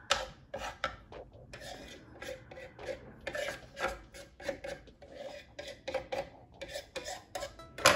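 Serrated knife scraping a paraffin candle into shavings: quick runs of short rasping strokes with brief pauses between them, and a single sharp tap near the end.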